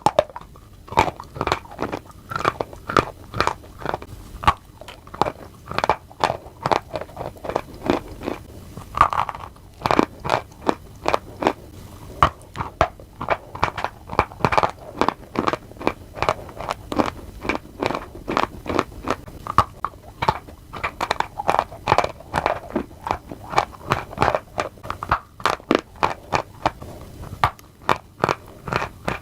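Crunchy food being bitten and chewed: a continuous run of crisp crunches, a few a second.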